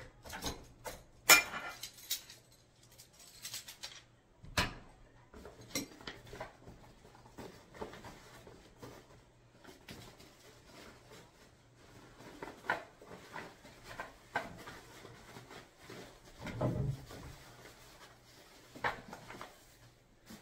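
Aluminum pole frame of a folding camping table clinking and knocking as it is pulled from its fabric storage bag and handled, with the bag rustling. The sharpest clink comes about a second in, and a duller low thump comes near the end.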